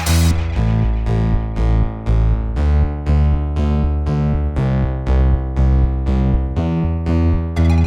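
Background music: electronic keyboard chords struck in a steady rhythm about twice a second over a bass line, with a hi-hat rhythm dropping out at the start and returning near the end.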